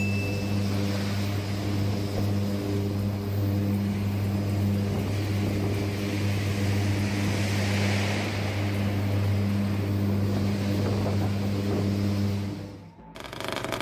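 Heavy machine's engine running steadily with a deep, even drone. About a second before the end it cuts off suddenly and a different engine sound takes over.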